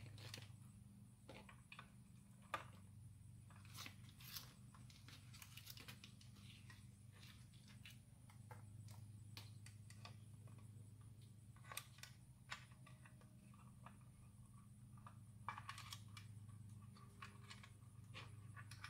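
Faint handling sounds: scattered sharp clicks and short rustles of wires and small plastic parts being handled over a steady low hum.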